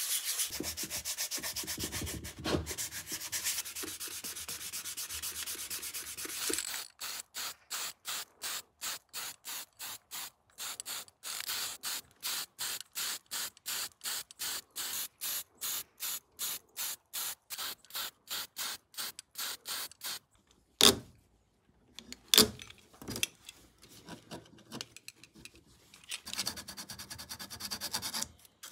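A sanding sponge rubs steadily over the primed handle of an old soldering iron for several seconds. Then comes a quick, even run of short spray-can hisses, about three a second, as the barrel is spray-painted. A few sharp knocks and more rubbing follow near the end.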